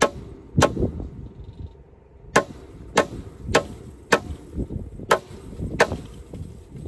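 Hammer blows on a wooden fence post: about eight sharp, irregularly spaced strikes.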